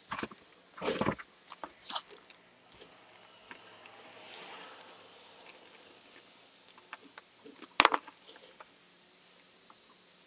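Scattered sharp clicks and knocks of small metal tools being handled on a newspaper-covered bench: a metal hobby knife picked up and set down and the metal clips of a helping-hands stand adjusted. There is faint scratching between them, and the sharpest click comes about eight seconds in.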